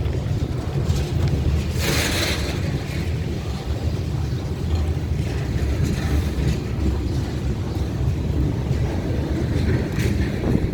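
Ferromex freight train rolling past with a steady low rumble, mixed with wind buffeting the microphone; a brief hissing gust about two seconds in.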